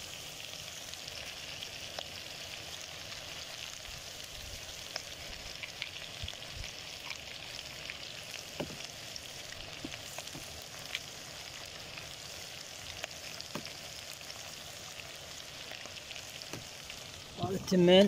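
Pieces of wild duck and chopped vegetables frying in an aluminium pot: a steady sizzle with scattered small crackles.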